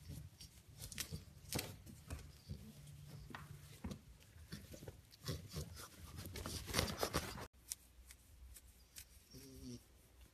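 Faint rustling and scattered soft clicks as a French bulldog in a padded costume scrambles and tumbles about on carpet, with a louder flurry of rustling about six to seven seconds in.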